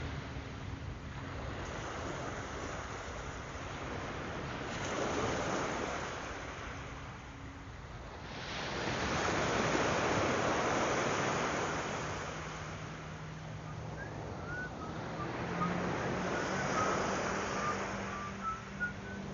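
Surf breaking and washing up a sandy beach, the noise swelling and falling away every few seconds, loudest about halfway through.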